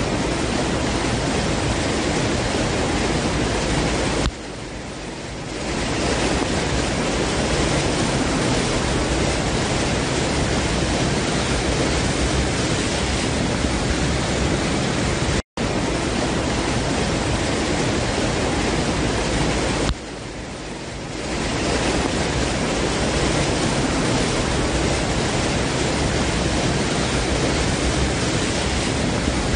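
Steady, dense rushing noise of a rainstorm over a flooded road. It twice drops in level for about a second before swelling back, and it cuts out for an instant about halfway through.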